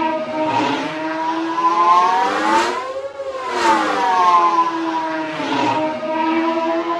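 Star Wars Separatist droid starfighter engine sound effect: a whining, many-pitched engine note that glides down in pitch to a brief dip about three seconds in, then glides back up.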